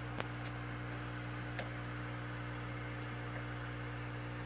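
A steady low electrical hum with a faint hiss, broken by a couple of faint ticks.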